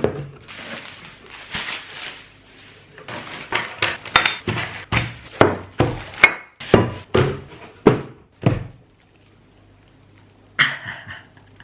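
A cardboard parcel being opened and unpacked: rustling and tearing of packaging, then a quick series of sharp knocks and thunks as the box and its contents are handled.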